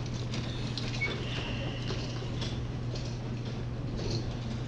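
A steady low hum with faint scattered clicks and rustles.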